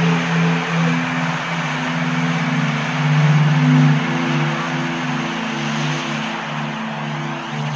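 Ambient synthesizer drone: several sustained low tones that slowly swell and fade under a steady rushing hiss.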